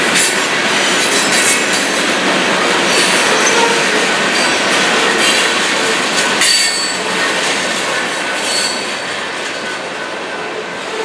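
Freight train boxcars rolling past: a steady rush of steel wheels on rail with brief high wheel squeals and clacks, getting a little quieter near the end as the last car goes by.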